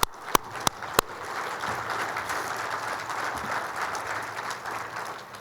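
Audience applauding: a few loud single claps close by in the first second, then steady applause from the crowd that fades toward the end.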